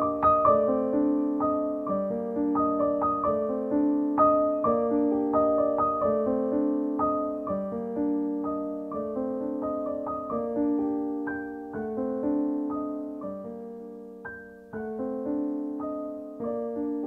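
Background solo piano music: notes struck about twice a second and left to ring over held chords.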